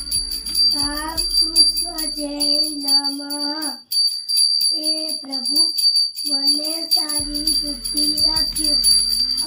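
A small puja hand bell rung rapidly and without pause, as during worship at a home shrine, with a devotional song sung over it. Bell and song both break off briefly about four seconds in, then carry on.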